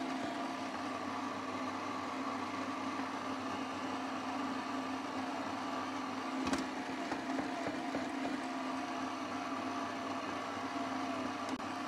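Electric stand mixer running steadily, its dough hook kneading a dry, crumbly egg pasta dough in the bowl, with a steady motor whine. There is a single brief knock about six and a half seconds in.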